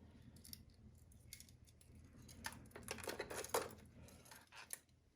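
Fishing tackle being handled: faint scattered clicks and light metallic clinks as lures and gear are picked up and set down, a little louder around the middle.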